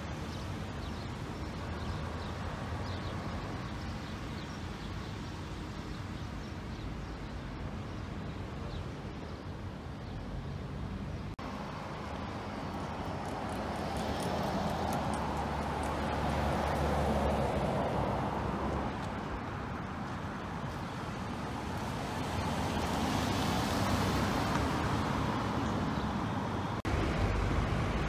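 Street traffic: a steady hum of road noise, swelling louder twice in the second half as vehicles pass.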